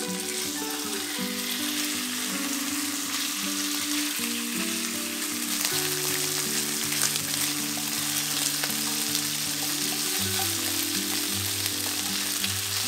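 Raw marinated chicken strips sizzling steadily in hot oil in a nonstick wok as they sear over high heat, with a wooden spatula tossing them partway through. Background music plays underneath.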